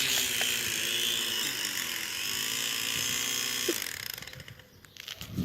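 Small Vivitar quadcopter's motors and propellers whirring after the drone has flipped over, the pitch wavering, then cutting off suddenly about four seconds in. A few faint clicks follow.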